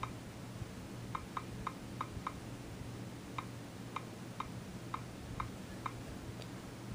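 Nexus 7 tablet's on-screen keyboard making its key-press click sound from the tablet's speaker: eleven short, light ticks, a quick run of five and then six more spaced further apart, one for each key tapped.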